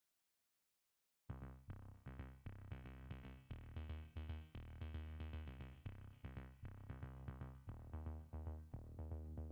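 Silence for about a second, then electronic background music with a steady drum-machine beat starts.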